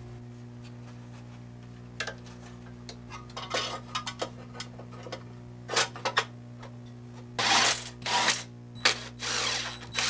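Hand work with tools: irregular scraping and rubbing strokes with sharp clicks, getting busier and louder in the second half, over a steady low hum.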